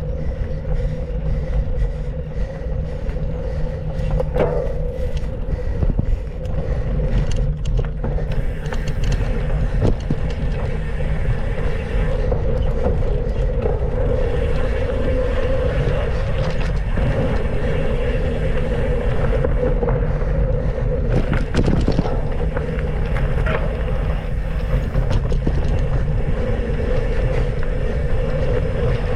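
Mountain bike being ridden on a trail: wind buffeting the microphone over the rolling of knobby tyres on dirt, with scattered short knocks and rattles from the bike.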